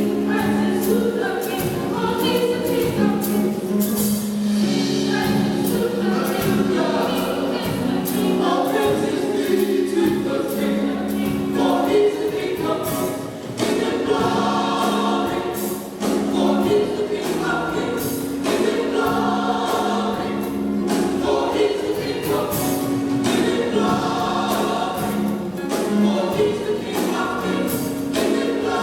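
Gospel choir singing in harmony with music behind it, sustained chords moving from phrase to phrase.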